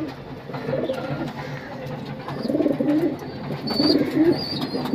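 Domestic pigeons cooing: low, warbling coos in several short bouts.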